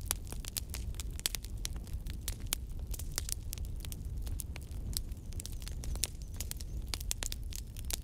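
Wood fire crackling: dense, irregular snaps and pops over a low, steady rumble of the burning logs.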